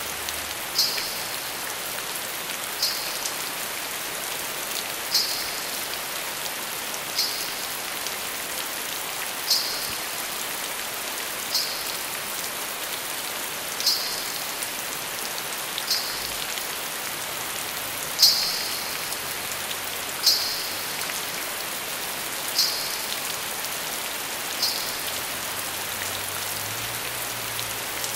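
Steady rain falling. Over it, a short high jingle of ghunghroo ankle bells repeats about every two seconds, twelve times, the loudest about two-thirds of the way through.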